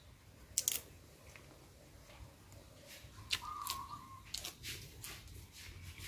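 Crisp raw green pods and fresh vegetable stems snapping and crunching as they are broken and eaten, in a few sharp cracks about half a second in and then more between three and five seconds in.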